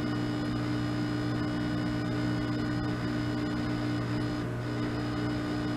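Riehle torsion testing machine running with a steady electrical hum while it twists a steel test bar under increasing load. One of its tones cuts off near the end.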